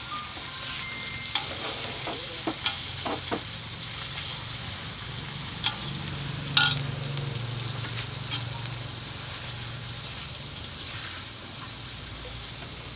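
Garlic and shallots sautéing in hot oil, with a steady sizzle, while a utensil is stirred and scraped against the pan. Several sharp clinks and scrapes break the sizzle; the loudest comes about six and a half seconds in.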